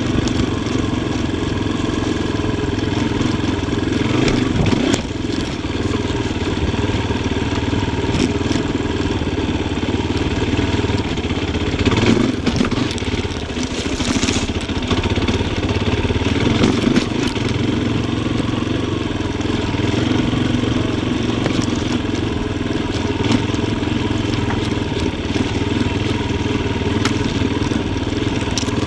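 Yamaha Tricker XG250's single-cylinder four-stroke engine running under a rider, revs rising and falling, with a few sharp knocks and clatter along the way.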